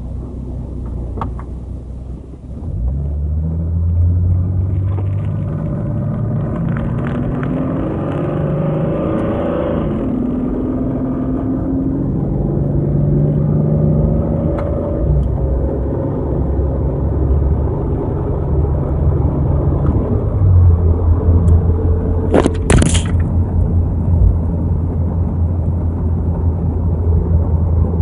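1989 Jeep Cherokee's 4.0-litre inline-six running, heard from inside the cab. The engine note climbs for several seconds and drops away about ten seconds in, climbs again, then settles to a steady low drone. A short sharp noise comes about twenty-two seconds in.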